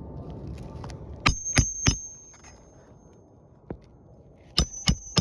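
Hammer driving roofing nails through an asphalt shingle: two quick runs of three sharp, ringing metal-on-metal strikes, the second run near the end.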